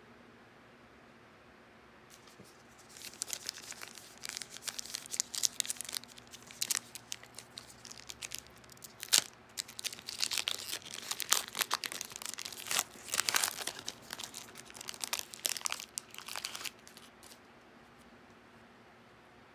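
Foil wrapper of a Panini Revolution trading-card pack being torn open and crinkled by hand, a dense run of sharp crackles and rips that starts about three seconds in and stops a few seconds before the end.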